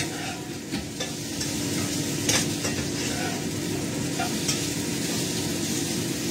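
Food frying in a wok, sizzling steadily as it is stirred, with a few sharp clicks of the utensil striking the pan and a steady low hum underneath.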